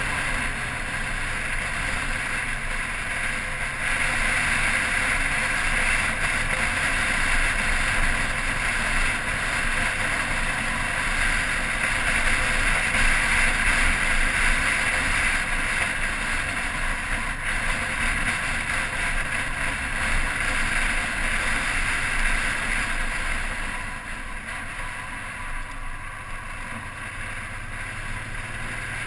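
Touring motorcycle's engine running at steady road speed, with wind rushing over the microphone. The sound drops a little about twenty-four seconds in, as the bike eases off.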